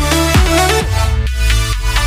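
Electronic dance music with a heavy beat about twice a second, giving way to a long held bass note about a second in.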